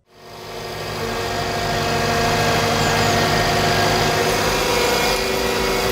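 Heavy machine's engine running steadily, fading in over the first second.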